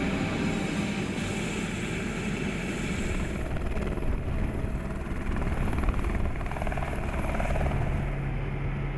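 Helicopter taking off, its rotor and turbine engine running with a fast, steady beat of the blades. Toward the end it is heard from inside the cabin as a steadier low drone.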